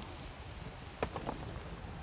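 Knife cutting through chicken of the woods fungus on a log: a few short snaps and clicks about a second in, over a low steady rumble.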